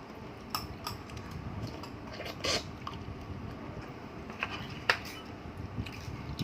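Scattered clinks and taps of tableware, utensils knocking against plates and dishes, over a low steady room noise; the sharpest clink comes just before five seconds in.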